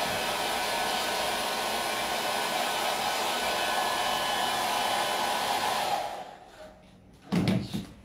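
Hand-held hair dryer blowing steadily to dry freshly brushed varnish, switched off about six seconds in, followed by a single thump about a second later.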